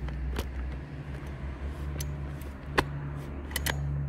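Sharp clicks and knocks of plastic and metal as the starter housing of a Lider 4114 chainsaw is fitted and screwed down with a screwdriver, the loudest about three quarters of the way through, with a double click soon after. A steady low hum runs underneath.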